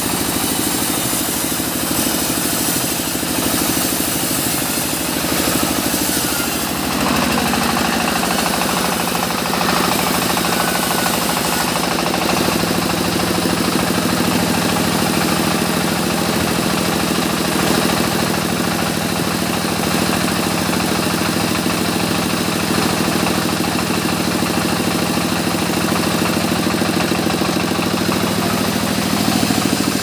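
Vertical band sawmill running steadily, its drive and blade making a continuous mechanical drone as a log is fed through the blade. The running note shifts about seven seconds in.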